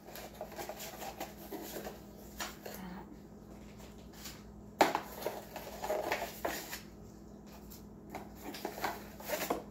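A cardboard kit box being handled and searched: rustling and scraping with a few sharp knocks and taps, the sharpest about halfway through.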